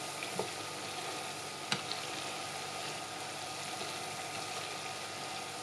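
Dried shallots deep-frying in a pot of oil: a steady bubbling sizzle as the water in the shallots cooks out and steams off. One sharp click a little under two seconds in.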